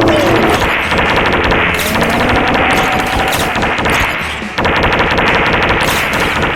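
A loud, rapid, continuous clatter of many small sharp impacts, broken by a short dip about four and a half seconds in.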